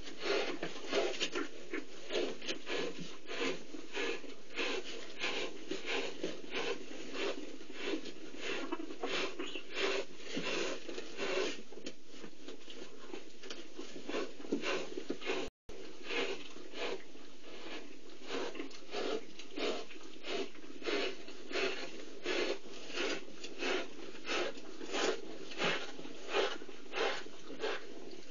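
Cheetah mother licking and grooming her one-week-old cubs: a rhythmic rasping of her tongue, about two or three strokes a second, with the sound cutting out for a moment about halfway.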